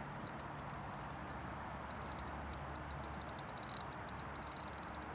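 Fishing reel's click check ticking rapidly and unevenly as line runs on and off the spool during the fight with a hooked salmon, over a steady rush of river and wind noise.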